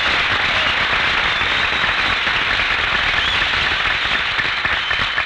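Sustained studio audience applause, dense and steady, with a few short whistles over it.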